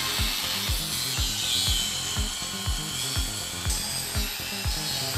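Electric angle grinder grinding a steel plate, a steady hissing whine that shifts in pitch as the disc is pressed into the metal. Under it runs background music with a steady thumping beat, about two and a half beats a second.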